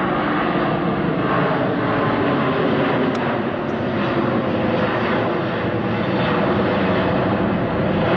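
Airbus A350's Rolls-Royce Trent XWB jet engines running, a loud, steady jet roar that holds at much the same level throughout.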